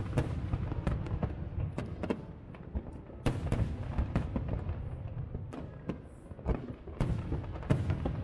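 Aerial firework shells bursting in quick, irregular succession: sharp bangs and crackles over a continuous low rumble, with a few louder reports near the middle and toward the end.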